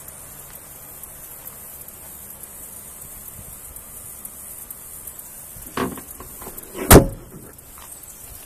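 Rear door of a 2012 Ford F-250 Super Duty crew cab being shut: a lighter knock near six seconds in, then a loud slam about a second later.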